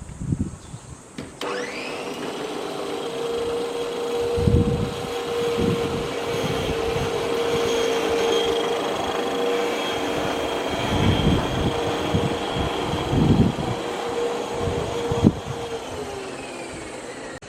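Makita MLM-2851 electric reel mower starting up about a second and a half in, running with a steady whine and a few low thuds, then winding down near the end. The whine carries an abnormal noise that the owner takes for the reel-blade shaft bearing.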